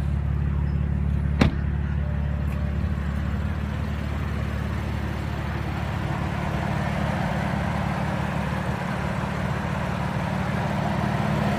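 A 2016 BMW M3's 3-litre twin-turbo inline-six idling steadily, with a single sharp click about a second and a half in.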